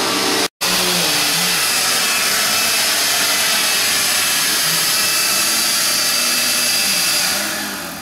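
Upright vacuum cleaner running loudly with a steady whine, its low hum dipping and rising in pitch. The sound cuts out for an instant about half a second in, and it fades away near the end.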